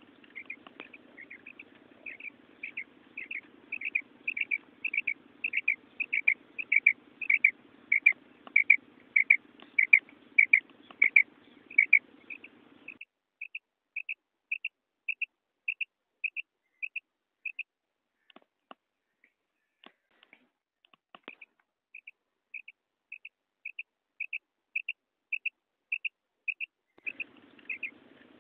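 Female rain quail call: a short, high note repeated about twice a second. It is loud over a low hum for the first half, then softer and clearer, with a pause of about four seconds partway through the later run.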